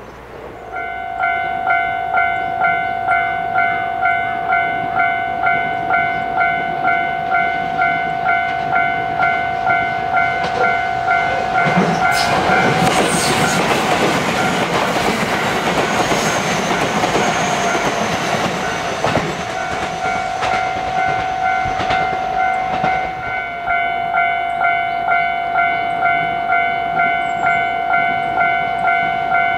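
Level-crossing alarm ringing in a steady repeating ding, about two strikes a second. About a third of the way in, a JR West 227-series electric train passes close by and its wheels and running gear drown out the bell for about ten seconds. Then the bell rings on alone.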